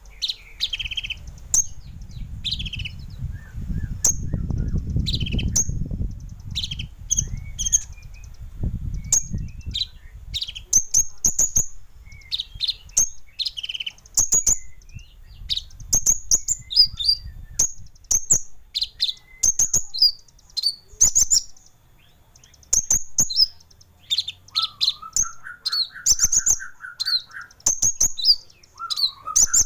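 Kolibri ninja (a sunbird) song, a fast run of sharp, very high chirps and twitters mixed with fill-in phrases. A low rumble sits under it for the first third, and a lower buzzy trill comes in twice near the end.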